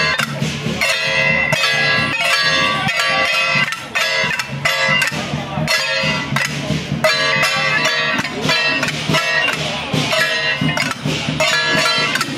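Taiwanese temple procession band playing: reed pipes carry a bright melody over a steady beat of metal percussion strikes.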